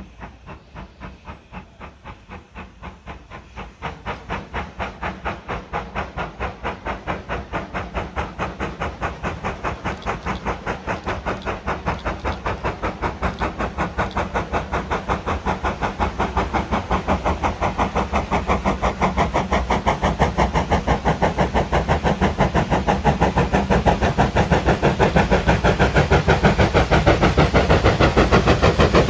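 GWR Hall class steam locomotive 4930 Hagley Hall, a two-cylinder 4-6-0, working a loaded passenger train toward the listener. Its chimney exhaust beats in a steady, rapid rhythm with a hiss of steam, and grows steadily louder as it approaches, with a step up in level about four seconds in.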